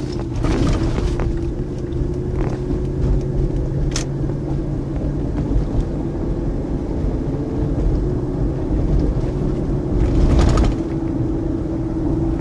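Lincoln Aviator's 4.6-litre V8 running, heard from inside the cabin, with a steady hum, a few sharp clicks and a louder rush about ten seconds in. The owner calls it a clicking, clacking, knocking sound and suspects an exhaust leak or an EGR fault, though he also fears timing chain slack.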